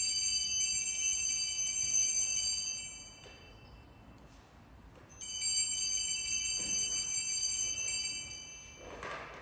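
Altar bells (sanctus bells) rung at the elevation of the chalice after the consecration: a bright, high jingling ring that stops about three seconds in, then a second ring about two seconds later that dies away near the end.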